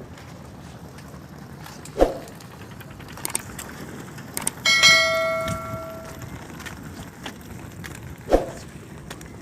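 A metallic clang about five seconds in that rings on like a struck bell for about a second and a half, between two short knocks, one near the start and one near the end, over a low steady background.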